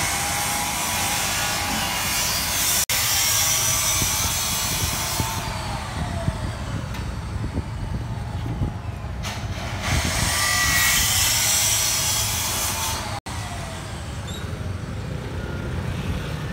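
Dough twists frying in a wok of hot oil, a loud sizzling hiss that swells for several seconds twice, over a steady low rumble of street traffic.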